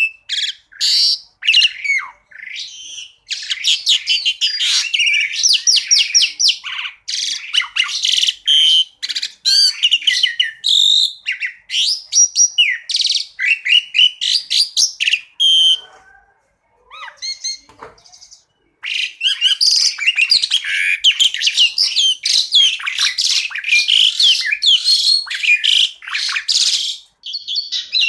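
Asian pied starling (jalak suren) singing a rapid, dense string of chirps and whistled notes. The song breaks off for a few seconds past the middle and then carries on.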